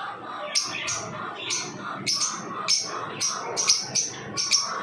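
Lovebirds chirping: a run of short, sharp, high chirps, two to three a second and coming faster toward the end, over softer chattering.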